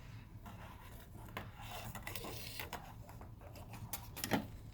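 Faint handling noise on a workbench: small scrapes, rubs and light taps as the circuit board and soldering tools are moved about, with a soft bump about four seconds in, over a low steady hum.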